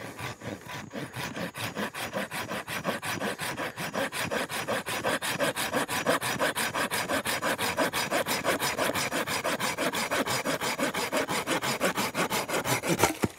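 Folding pruning saw cutting through a wooden pole in steady, rapid back-and-forth strokes, the teeth rasping through the wood until the cut finishes near the end.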